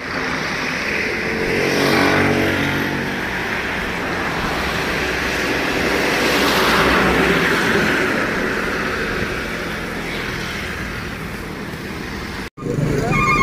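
Road traffic: a motor vehicle passes about two seconds in, its engine pitch falling as it goes by, then another vehicle swells past and fades a few seconds later. The sound cuts off abruptly near the end.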